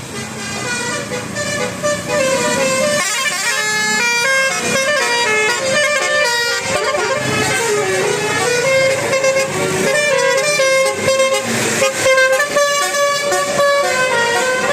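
Bus 'telolet basuri' musical horn playing a tune: a long run of loud held notes stepping up and down in pitch, with a short rush of noise a little past the middle.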